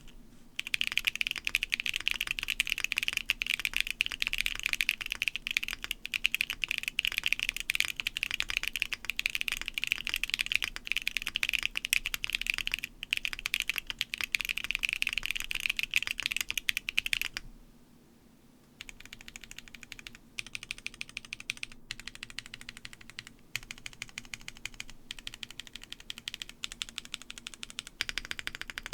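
Fast typing on a custom mechanical keyboard with Holy Panda tactile switches (Halo True stems in YOK Panda housings), o-ring mounted with a polypropylene plate: a dense run of key clicks. The typing stops for about a second around two-thirds of the way through, then resumes more quietly.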